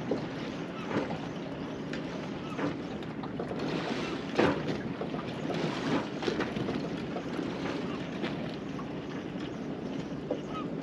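Water slapping and lapping against the hull of a small drifting boat, with wind across the microphone. A few short, sharp slaps or knocks stand out, the loudest about four and a half seconds in.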